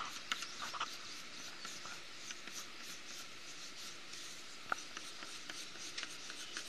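Pencil scratching across paper in quick, short back-and-forth strokes, sketching in grass.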